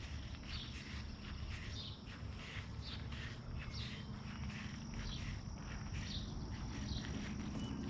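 Footsteps of a person walking outdoors, about two steps a second, over a steady thin high whine and a low rumble.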